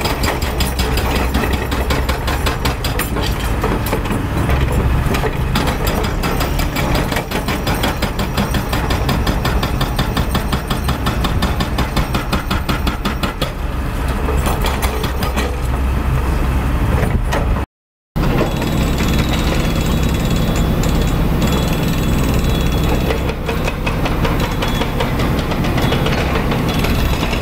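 Hydraulic rock breaker on a wheeled excavator hammering rock with rapid, even blows over the excavator's diesel engine running. About 18 s in the sound cuts off briefly, then heavy machinery keeps running with less distinct hammering.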